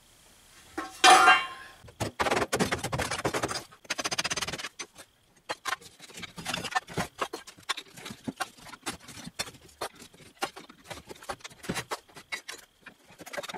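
Loose bricks and mortar clinking and knocking as an old brick fireplace surround is taken apart by hand and the pieces land on the rubble pile. A loud clank about a second in, dense rattling from about two to four seconds, then scattered clicks and knocks.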